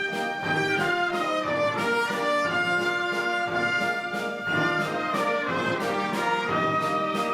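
Orchestra playing a waltz live: held melody notes over a regular beat.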